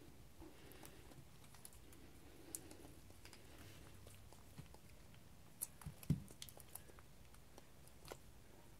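Faint, scattered clicks and taps, with a quick cluster about six seconds in, as a kitten bats at and bites a hard plastic toy ball.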